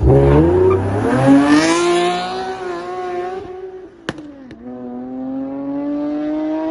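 A car engine revved hard, its pitch climbing over about two seconds and falling back, with a sharp pop about four seconds in, then a second long rev climbing slowly.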